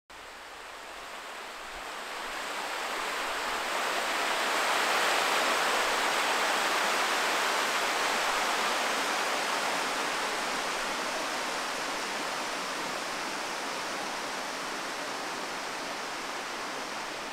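Steady rush of a waterfall, fading in over the first few seconds and easing off a little toward the end.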